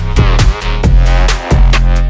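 Electronic music with a steady drum beat, deep bass and synth notes that glide down in pitch.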